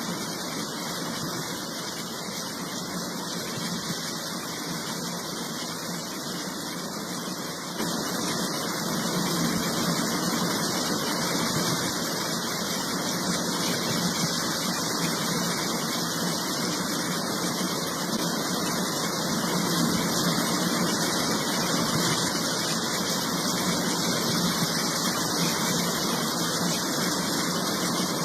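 Steady roar of a waterfall in flash flood, heavy water pouring and rushing. It gets louder about eight seconds in.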